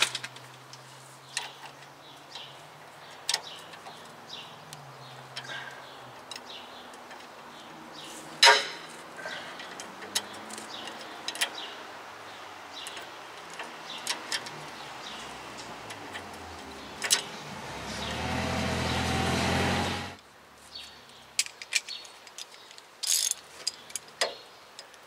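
Ratchet clicking and metal tools clinking on a Toyota Tacoma's upper ball joint nut, scattered sharp clicks over a low steady hum. Near the end a rush of noise swells for about three seconds, the loudest sound here, then cuts off suddenly.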